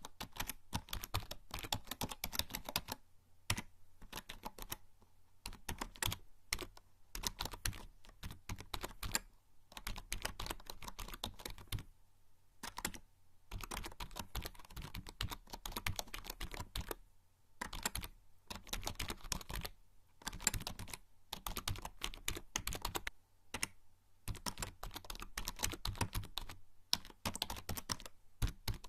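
Typing on a membrane computer keyboard: fast runs of soft key clicks in bursts of a few seconds, with brief pauses between them.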